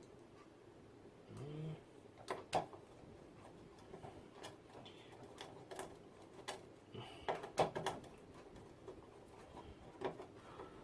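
Scattered small clicks and taps of tiny computer screws and hardware being picked through and handled, irregular and unhurried, with a quick cluster of louder clicks a little past the middle.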